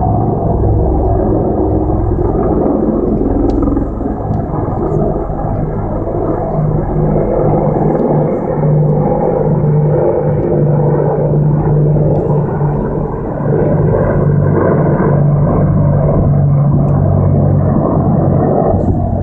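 Three AH-64 Apache attack helicopters flying overhead in formation: loud, steady drone of their rotors and turbine engines, with a strong low hum running through it.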